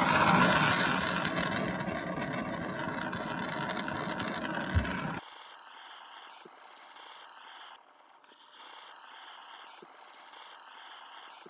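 Small handheld torch flame, turned down low, running with a steady hiss as it heats heat-shrink tubing. After about five seconds there is a light knock, and the flame noise cuts off suddenly, leaving a faint steady background.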